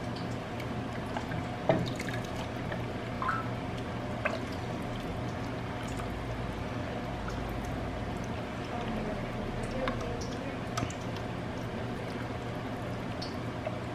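Hot soup broth poured from a metal ladle into a bowl, pouring and dripping, with a few light clicks over a steady background hum.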